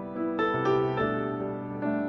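Solo piano playing a slow melody: notes struck about four times, each left ringing under the next.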